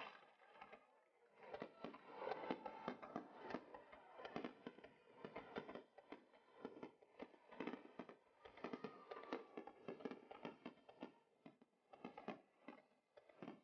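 Faint fireworks crackling: a dense, irregular patter of small pops and crackles.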